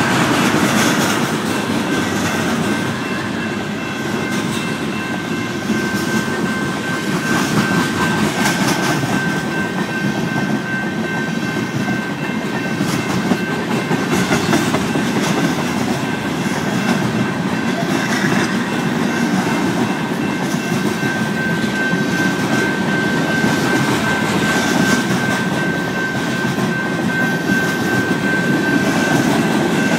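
Freight train cars rolling steadily past over a grade crossing, wheels clattering irregularly over the rails, while the crossing bell rings on with a steady high tone throughout.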